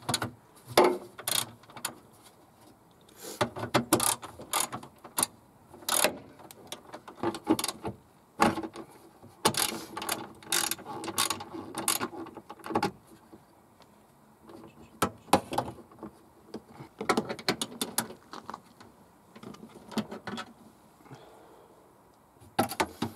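Hand socket ratchet clicking in short runs as small 10 mm bolts are undone, with pauses between runs.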